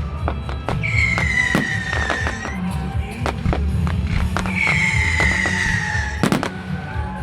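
Fireworks display with frequent sharp cracks and pops, over steady music and a low rumble. Two long tones fall slowly in pitch, about a second in and again near the middle.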